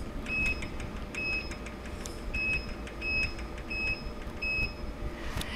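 Kinco touchscreen control panel of a CNC rebar stirrup bending machine beeping at each key press as a value is keyed in: six short, high beeps over about four seconds, over a low steady hum.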